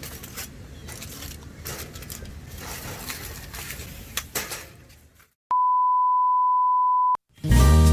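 A single pure electronic beep tone, steady and high-pitched, lasting about a second and a half and stopping abruptly, of the kind laid in during editing. Before it there are several seconds of low uneven background noise with scattered clicks and a brief silence, and music starts right at the end.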